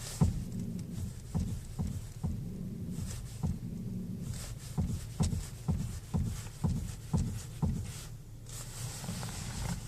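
Steering of a 2015 Ford Focus 3 with hydraulic power steering, turned to full lock: a series of sharp metal-on-metal knocks, roughly two a second, with rubbing sounds, over a steady low hum. The knock only appears at full lock, and the owner points to the steering rack.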